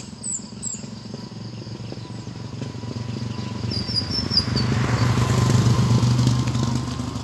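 A motor vehicle's engine going past, its low hum growing louder to a peak about five to six seconds in, then easing off.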